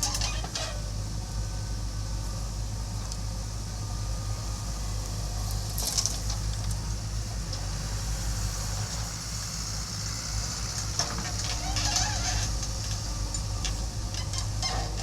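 Backhoe loader's diesel engine running steadily, with a few brief clatters and scrapes, a short one about six seconds in and a longer patch near the end.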